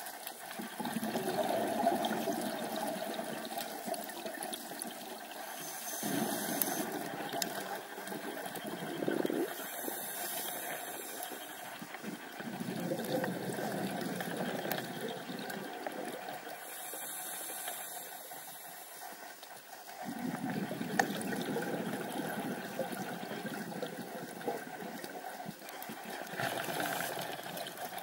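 Underwater sound of a scuba diver breathing through a regulator: a short high hiss on each inhale, then a long bubbling gush of exhaled air, about four breaths in all.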